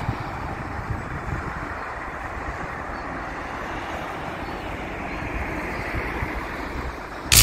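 Steady road traffic noise from cars and trucks on a highway.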